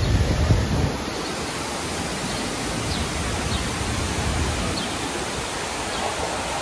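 Steady, even rushing background noise of a city street, with louder low rumbles in the first second.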